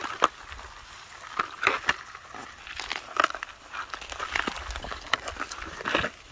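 Ground litter crackling and rustling as it is disturbed, in uneven bursts about once a second.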